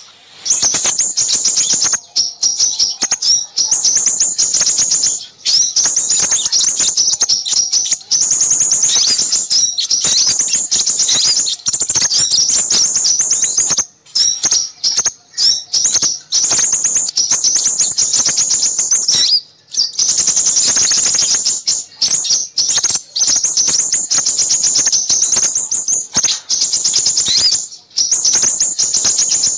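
A bird-trapping lure recording of small songbirds chattering busily: a dense stream of rapid, high twittering chirps. It breaks off briefly twice.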